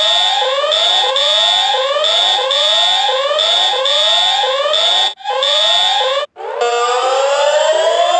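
Emergency alert system alarm tones: a whooping alarm of quick rising sweeps over a pulsing high steady tone, repeating a little faster than once a second, breaking off twice about five and six seconds in. Near the end a different siren takes over, with several overlapping tones gliding slowly upward.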